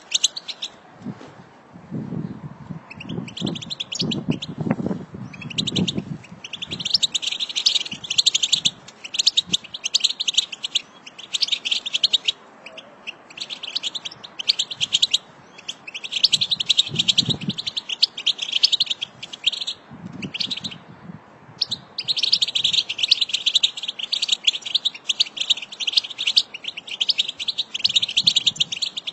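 A group of European goldfinches twittering: rapid chattering notes in phrases of one to three seconds with brief pauses between them. A few low thumps sit underneath, mostly between two and six seconds in.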